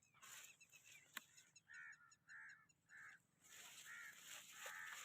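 Faint bird calls: four short, harsh, caw-like calls less than a second apart, over a light rustling, with a single sharp click a little over a second in.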